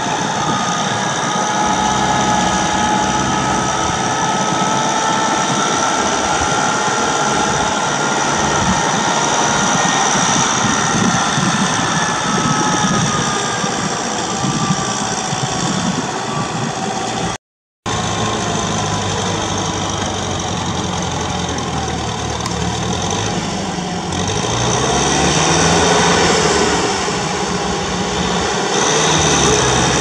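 Farm tractor engine running steadily as the tractor works through a flooded paddy field. The sound cuts out for a moment just past halfway, and in the last third the engine's pitch rises and falls.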